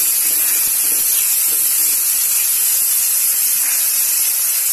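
Sliced onions sizzling steadily in hot oil in a kadhai as they are stirred with a spatula.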